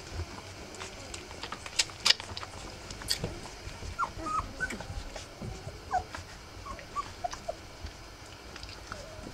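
Three-week-old rough collie puppies giving short, high squeaks and whimpers while nursing. A few sharp clicks come about two seconds in.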